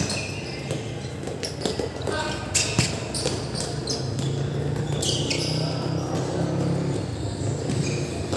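A football being kicked and bouncing on a hard court in a hall, a series of sharp knocks, with players' voices calling out and short squeaks in between.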